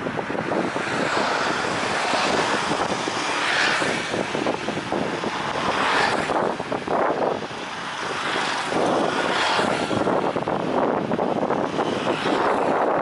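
Airbus A330-300 airliner with Rolls-Royce Trent 700 engines on final approach, its jet engines making a steady rushing noise that swells and eases a little.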